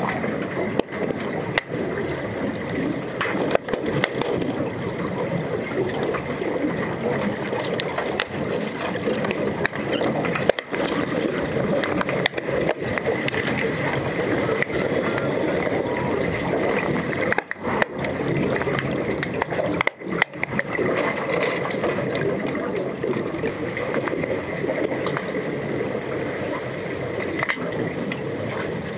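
Underwater pool ambience picked up by a submerged camera: a steady rushing water noise with scattered sharp clicks and knocks.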